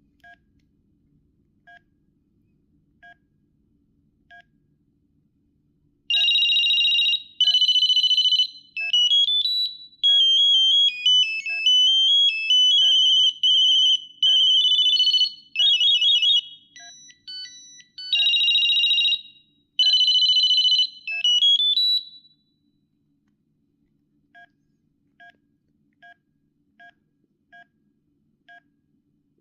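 Ericsson EH237 mobile phone previewing its built-in ringtones through its speaker: several loud single-voice ringtone tunes and trilling rings, one after another. Short key beeps come before and after them as the menu is scrolled.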